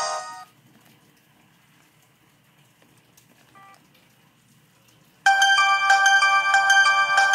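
Samsung ringtones played through a ZTE Z222 phone's speaker: one melody of pitched notes stops about half a second in, a quiet pause follows with one short faint beep partway through, and a new ringtone melody starts about five seconds in.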